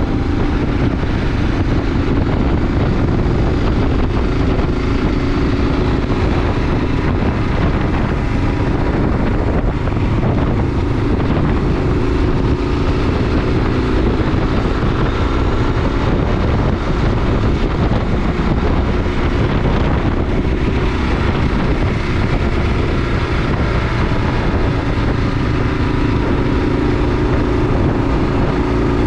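Kawasaki KLR 650 single-cylinder engine running steadily as the motorcycle is ridden, with wind rushing over the helmet- or bike-mounted action-camera microphone.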